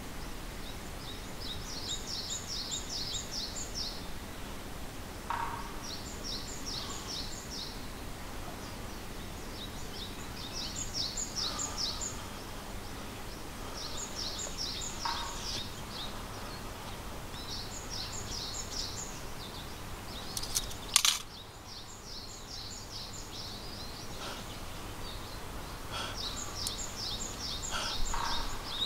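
A songbird repeating a short phrase of rapid high notes every few seconds, now and then with a lower short note, over steady outdoor background noise. About three-quarters of the way through there is one sharp click, the loudest sound.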